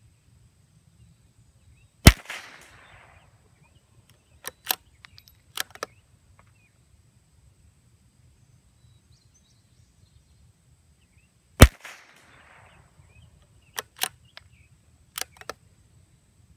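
An accurized CZ 455 bolt-action .22 LR rifle fires twice, about ten seconds apart; each shot is a sharp crack with a short fading tail. A few seconds after each shot comes a quick run of three or four clicks, the bolt being worked to eject the case and chamber the next round.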